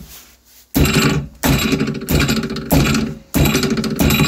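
A big hammer striking a factory plastic RC car suspension arm clamped in a steel bench vise: about six hard blows roughly two-thirds of a second apart, each with a short ring. The arm holds under the blows, bending a little rather than shattering.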